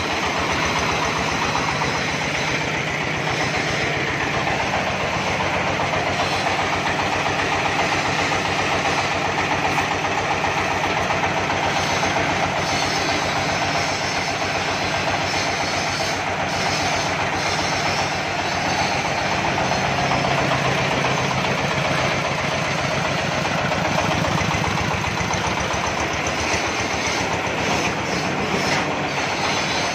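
26 hp diesel engine of a mobile circular-saw mill idling steadily with an even low pulse.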